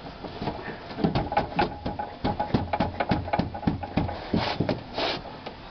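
Replacement door glass being pushed down inside a car door, clicking and knocking irregularly against its track and the sheet-metal door shell, several knocks a second.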